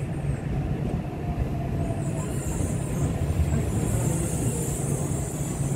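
Yokohama Municipal Subway 3000R train running, heard inside the passenger car: a steady low rumble of wheels and running gear, with a high hiss coming in about two seconds in.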